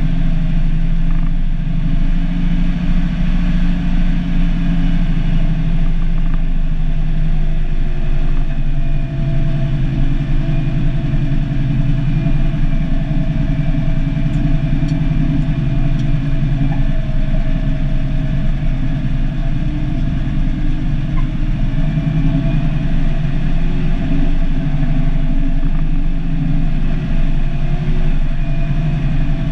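Cummins NH-180 turbocharged inline-six diesel in an International F-210D dump truck, running steadily while the truck drives along, heard from inside the cab.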